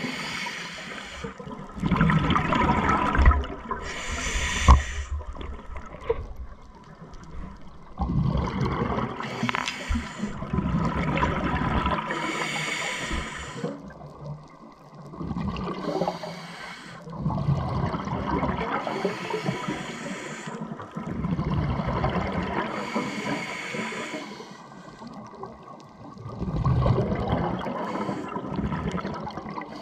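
Scuba diver breathing underwater through a regulator: a hiss of air on each inhale and a rumbling gush of exhaled bubbles, recurring every few seconds.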